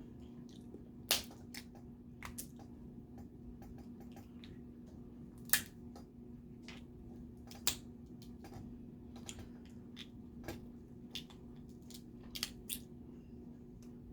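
Scattered sharp cracks and clicks of snow crab legs and crawfish shells being cracked and picked apart by hand and teeth, without a crab cracker. The loudest cracks come about one, five and a half, seven and a half and twelve seconds in, over a faint steady hum.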